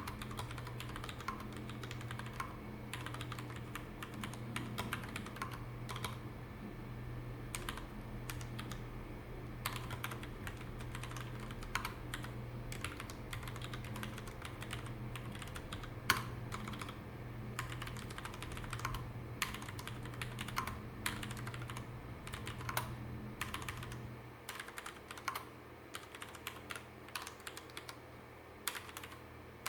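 Typing on a Ducky One mechanical keyboard with Cherry MX Red linear switches and floating DS keycaps: a steady, irregular patter of keystrokes. A low hum under the typing stops about three-quarters of the way through.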